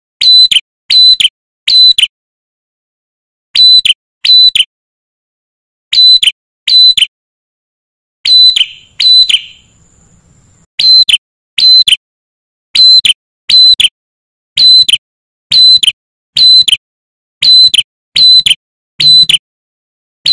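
Male ashy tailorbird (red-headed tailorbird) calling: loud, sharp, piercing notes, first in runs of two or three with short pauses, then in a steadier series of about one a second.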